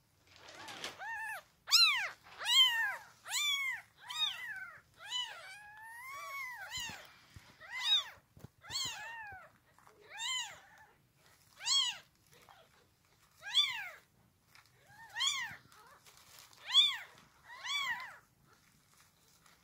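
Young kittens mewing over and over: short, high-pitched calls about once a second, each rising and falling in pitch, with one longer, wavering mew partway through.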